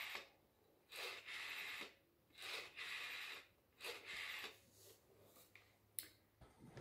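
Cream candlestick-style telephone being dialled by hand: four bursts of dial noise, each about a second long with short pauses between, then a single sharp click near the end.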